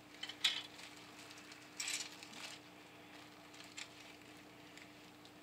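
Clear plastic bag crinkling and hard plastic model-kit sprue parts clicking as the parts are handled and pulled from the bag: a brief rustle about half a second in and a longer one around two seconds in, with a few faint ticks later. A faint steady hum lies underneath.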